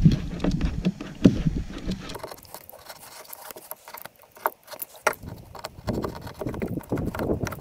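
Utility knife scraping and slicing through tar paper (roofing felt), trimming its frayed edge along a routed slot, in short scratchy strokes with small clicks. A low rumble fills the first two seconds and returns near the end.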